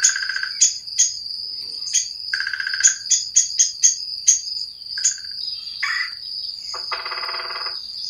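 Bird calls: a string of short, sharp high notes, some in quick runs, and then a harsh rolling call about seven seconds in. Beneath them is a steady, high insect drone.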